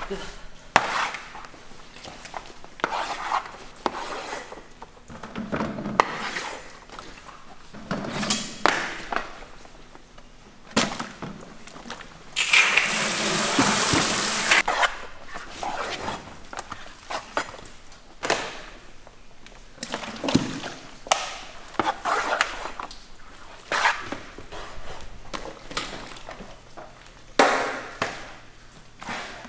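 Wet, dough-like paste being torn apart by gloved hands, with chunks thumping into plastic buckets at irregular intervals. About twelve seconds in, a hose sprays water into the buckets for around two and a half seconds, the loudest part.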